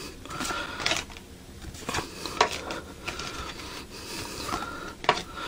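Trading cards being handled and flipped through: irregular soft snaps and brief sliding sounds of card against card.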